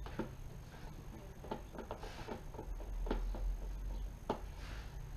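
Irregular light clicks and taps of a screwdriver working the screws and plastic handlebar fairing of a PGO T-Rex scooter, with a sharper click about four seconds in.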